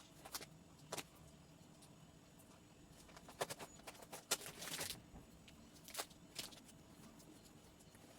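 Faint handling noises: scattered short clicks and taps, with a cluster of them and a brief rustling scrape between about three and a half and five seconds in.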